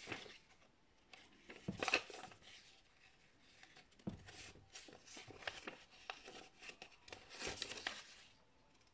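Paper rustling and crinkling as a folded paper quick-start leaflet is unfolded and its pages are flipped, with louder rustles about two seconds in and again near the end.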